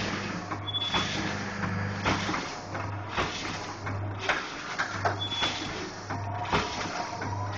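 Automatic vertical sachet packing machine running, its sealing and cutting jaws clacking about once a second as it turns out a chain of filled snack sachets, over a low electric hum that switches on and off with each cycle.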